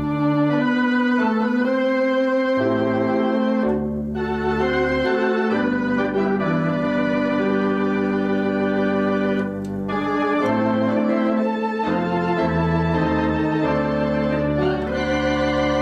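Conn 650 electronic theatre organ playing held chords over changing bass notes, with brief lulls about four and ten seconds in.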